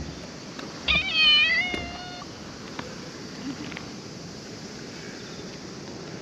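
A calico cat meows once, a single drawn-out meow starting about a second in and lasting just over a second.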